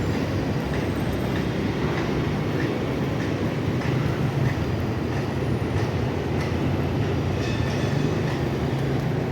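Steady low rumble of walkway ambience with faint, regular ticks about one to two a second.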